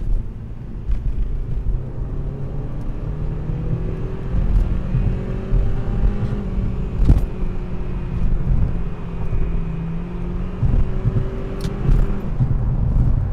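Cabin noise of a turbocharged Honda Civic's 1.8-litre R18 four-cylinder under way: engine note rising as the car speeds up over the first several seconds, then steady tyre and engine rumble at highway speed. A couple of short knocks come through along the way.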